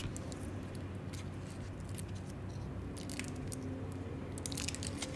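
A cheese wrapper crinkling and crackling as it is peeled open by hand: irregular sharp little crackles, coming in short clusters that grow busier in the second half.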